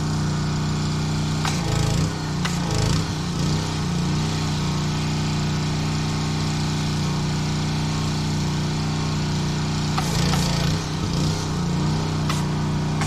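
Honda gas pressure washer engine running steadily under the hiss of the spray jet. The spray sound shifts and crackles briefly about two seconds in and again near the end.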